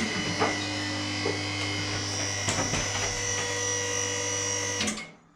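Electric motor and pump of a portable car lift running steadily with a high whine while raising a car, cutting off suddenly about five seconds in.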